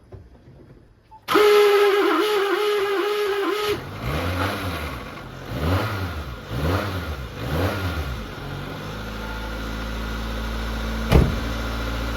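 Subaru R-2's air-cooled 360cc two-stroke twin cranked on the starter, catching after a couple of seconds. It is revved up and back down four times, then settles into a steady idle, with a single click near the end.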